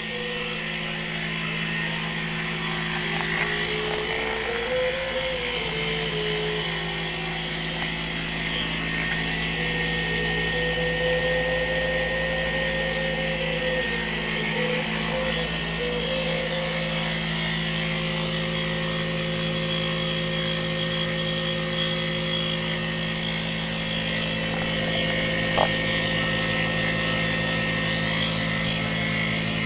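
Taig CNC mini mill running a profile cut in a wooden board with a quarter-inch flat end mill: the spindle motor hums steadily while a whining tone rises and falls in pitch as the table follows the tool path. One short click about 25 seconds in.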